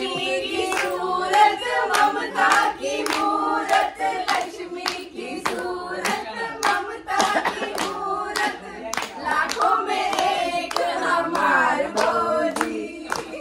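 Voices singing a song together without instruments, accompanied by hands clapping a steady beat.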